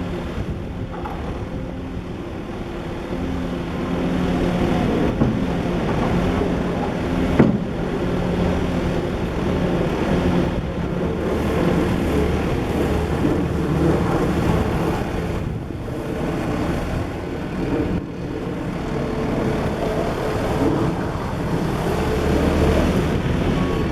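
A Bobcat S650 skid steer loader's diesel engine running, its speed rising and falling as the machine is worked. There is a sharp knock about seven seconds in.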